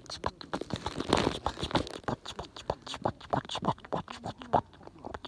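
Wood fire crackling: a dense, irregular run of sharp snaps and pops.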